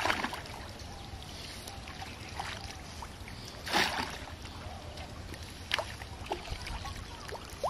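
Round hand net on a bamboo pole splashing as it is swept through shallow pond water: one splash at the start and a louder one about four seconds in. A few short, lighter water sounds follow as the net is lifted out.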